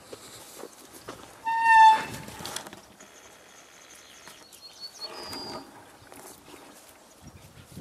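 Roe deer buck walking and grazing on grass and dry stalks: faint hoof steps and rustling. About a second and a half in, a loud, high, whistle-like squeal lasts about half a second, its pitch falling slightly. Faint high chirps come near the middle.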